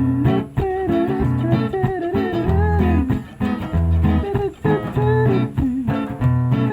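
A live band plays an instrumental passage of a song: a guitar melody line sliding and bending in pitch over held bass notes.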